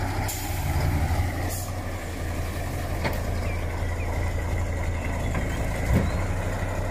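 Truck engine idling with a steady low rumble, and a single brief knock near the end.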